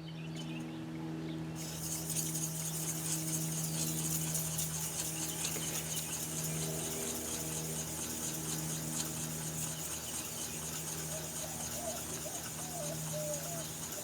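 A powered sharpener's motor hums steadily, and from about a second and a half in a woodturning tool is held to the spinning stone, adding a steady scraping grind.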